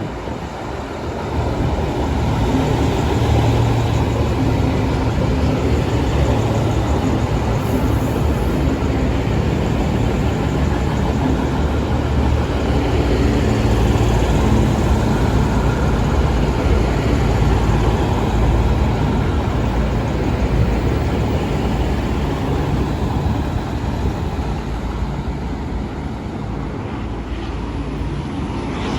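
A train running past close by: a loud, steady rumble of wheels on track with a low hum. It builds about a second in and eases slightly near the end.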